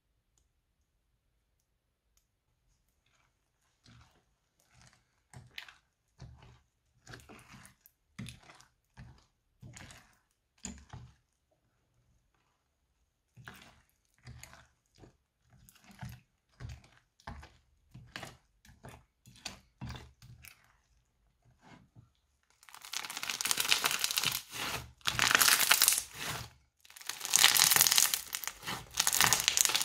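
A spatula stirring bead-filled slime in a bowl, soft separate strokes about twice a second. Near the end, hands squeezing and stretching the crunchy beaded slime set off loud, dense crackling and crunching in surges.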